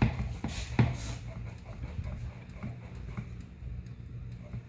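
Sharp knocks on the homemade plywood kydex press as it is handled, two of them in the first second, then a few faint taps over a low steady hum.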